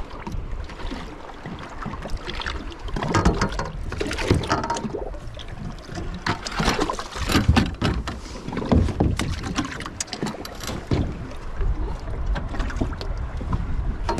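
Boat on the water: irregular splashes and slaps of water against the hull over a low rumble of wind.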